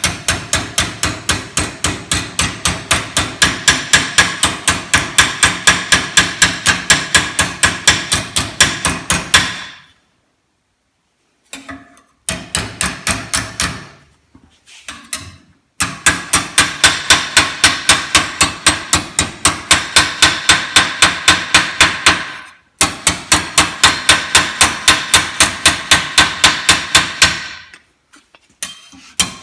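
Hand hammer striking sheet metal held over an antique cobbler's iron shoe last in a vise, shaping the metal to a curve. Fast, even blows at about four or five a second, each one ringing, in long runs broken by short pauses.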